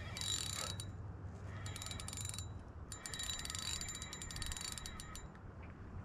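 Spinning reel's drag clicking rapidly as a hooked fish takes line against the bent rod, in three runs: a short one at the start, another about two seconds in, and a longer one from about three to five seconds.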